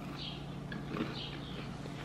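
Soft crunching of a person chewing a puffed corn and rice snack, a few faint crunches over a steady low hum.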